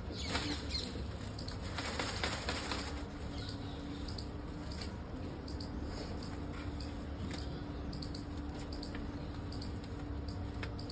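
Rustling and crinkling of large kites as they are handled, loudest in two short spells in the first few seconds, then scattered light ticks and rustles. A low steady rumble and a faint steady hum run underneath.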